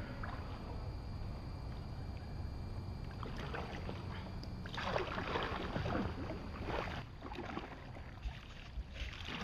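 Kayak paddle strokes in calm river water: splashing and dripping in stretches about three and five seconds in and again near the end, over a steady low rumble.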